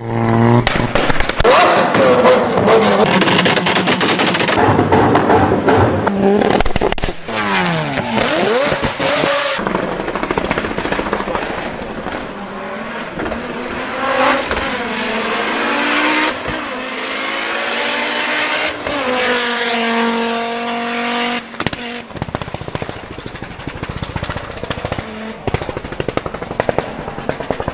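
Several car engines, one clip after another, revving up and down with rapid exhaust pops, crackles and bangs from anti-lag and backfiring. Near the end comes a fast string of sharp cracks, like gunfire.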